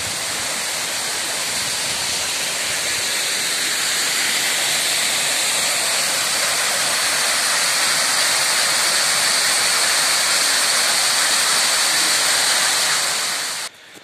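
Steady rushing of a waterfall and the shallow stream running over rocks below it. The sound cuts off abruptly near the end.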